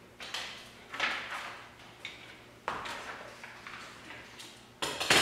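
A few separate knocks and rustles of objects being handled, each fading quickly, with the loudest, a sharp double clatter, near the end.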